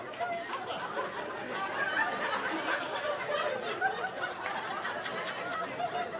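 Audience laughing and chuckling at a stand-up comedy joke.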